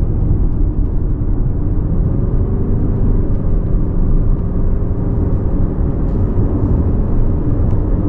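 Car driving uphill: steady engine hum over tyre and road noise.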